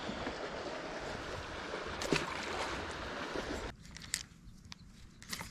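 Steady rush of water and wind around a small fishing boat, with a few light knocks, cutting off abruptly about two-thirds of the way in; after that only faint scattered clicks remain.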